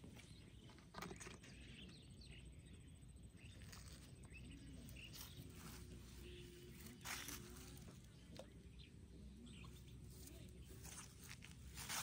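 Quiet outdoor ambience with a few soft rustles and clicks: one about a second in, a stronger one around seven seconds, and another near the end.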